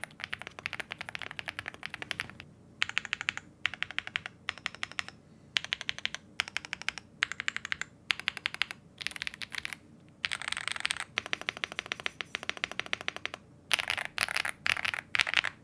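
Typing on a Chilkey ND75 75% mechanical keyboard: quick runs of keystrokes broken by short pauses, with the loudest strokes near the end.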